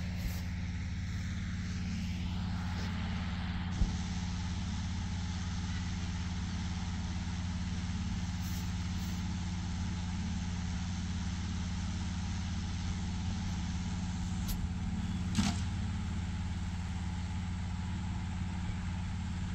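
Hot air balloon inflation fan running steadily, a constant engine hum as it blows cold air into the envelope during cold inflation. Two light knocks, about four seconds in and near three-quarters of the way through.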